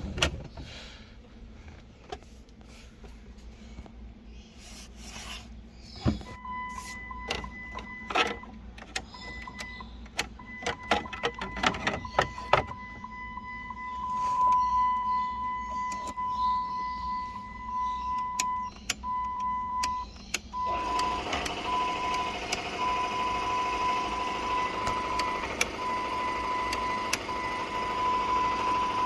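An electronic beep tone: a run of clicks and knocks, then a steady high beep that breaks into a string of short, evenly spaced beeps, with a steady rushing noise joining about two-thirds of the way in.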